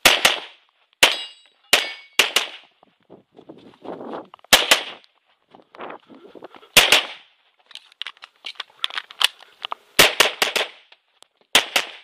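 Tanfoglio Limited Custom Extreme pistol in .40 S&W firing about twenty shots, mostly in quick pairs, with pauses while the shooter moves between positions. Some shots are followed by the ringing ping of a steel target being hit.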